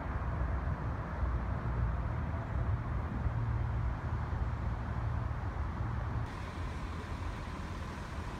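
Steady low outdoor rumble with a hiss above it, the kind of background that wind and distant traffic make, with no voices; the background shifts abruptly about six seconds in.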